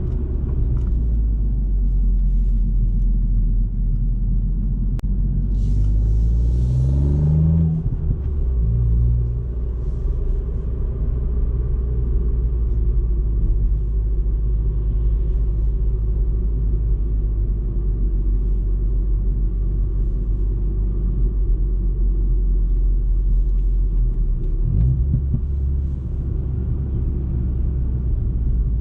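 Ford Fiesta ST Mk8's 1.5-litre turbocharged three-cylinder engine running steadily while driving. About six seconds in its pitch rises as the car accelerates, then drops off sharply about eight seconds in, and it settles back into a steady drone.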